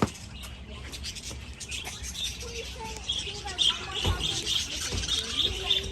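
A flock of budgerigars chattering: many quick, high chirps that thicken about a third of the way in and carry on densely.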